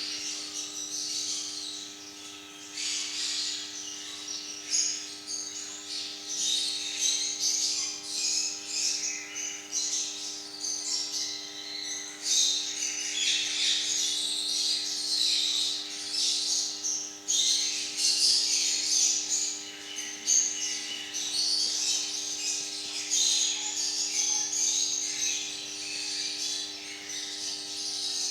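A parrot chattering and chirping without pause in quick, high-pitched calls, over a faint steady hum.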